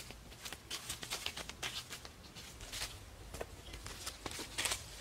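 Footsteps on dry leaf litter, with irregular rustling and crackling of leaves and twigs.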